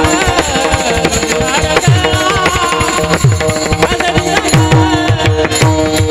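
Marathi devotional kirtan music: a hand drum plays quick strokes whose deep notes slide down in pitch, over held melody notes.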